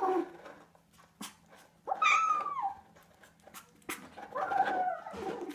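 A pet making two drawn-out calls, the first sliding down in pitch, with a few sharp clicks between them.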